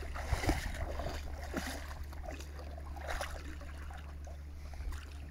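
Water splashing and lapping as a dog swims, with scattered small splashes over a steady low rumble.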